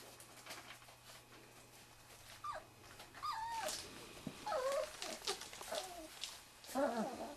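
Wirehaired Pointing Griffon puppies, three and a half weeks old, whimpering and squeaking in short, wavering cries that start about two and a half seconds in, with scattered light clicks and rustles between them.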